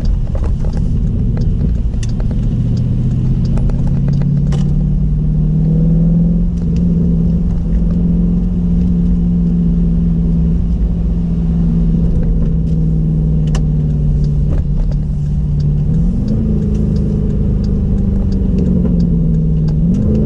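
Jeep Grand Cherokee SRT's 6.4-litre V8 with a Borla exhaust, a steady low drone while cruising. The engine note rises quickly twice near the end.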